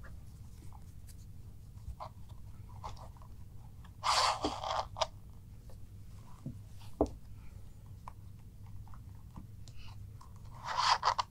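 Leather straps of a Galco Miami Classic II shoulder holster being pulled through the slots of its back plate and handled on the table: scattered faint rubbing and ticks, with two louder scraping rushes, one about four seconds in and one just before the end.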